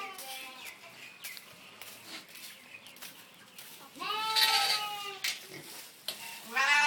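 Young farm animal bleating twice: a long, wavering bleat about four seconds in, and another starting near the end.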